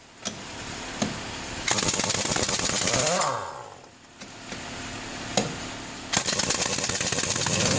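Heavy-duty air impact wrench run in bursts, its hammer rattling rapidly, with a lull about halfway through.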